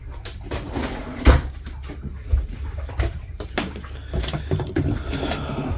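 A few knocks and clunks from someone moving about inside a sailboat's cabin, the loudest about a second in, over a low rumble of handling noise.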